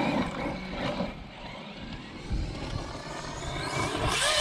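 Electric 1/8-scale RC truck driving over dirt: a brushless motor whine with tyres scrabbling on the ground, louder near the end.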